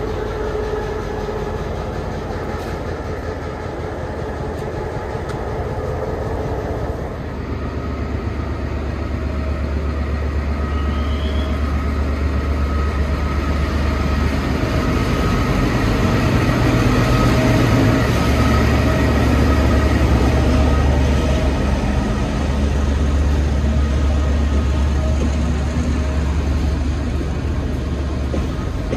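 Commuter train hauled by an EMD GL22 diesel-electric locomotive, running: a steady low diesel drone over rail and running noise, growing louder from about a quarter of the way in and loudest a little past the middle.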